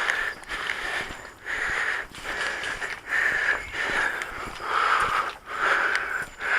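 A person breathing hard close to the microphone, with quick breaths in and out about one a second.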